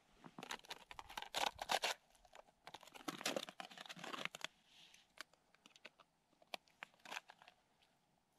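Crunching and scraping of snow and slushy ice at the edge of an ice-fishing hole, in two bursts in the first half. After that come scattered light clicks and knocks as fishing gear is handled.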